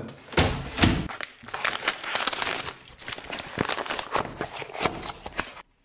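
Plastic mailer bag crinkling and rustling as it is pulled open and off the cardboard boxes inside, with a couple of dull knocks from handling the package near the start.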